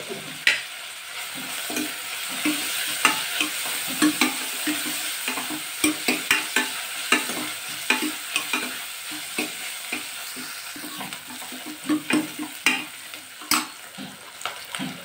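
Sliced onions, garlic and curry leaves sizzling in hot oil in a pressure cooker, stirred with a steel ladle that scrapes and knocks against the pot in frequent irregular strokes.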